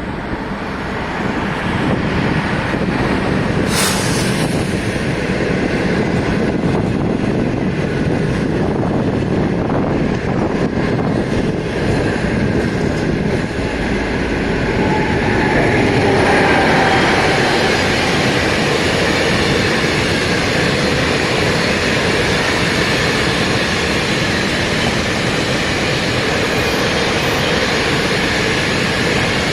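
A train running past close by: a continuous loud rumble and clatter of wheels on rails, with a sharp crack about four seconds in.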